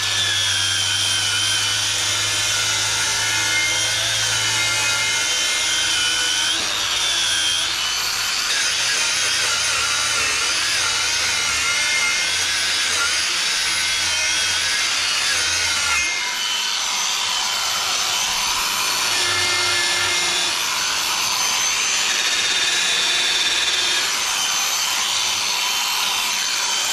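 Handheld power tool running continuously under changing load, its whine wavering up and down in pitch, with a change in its sound about 16 seconds in.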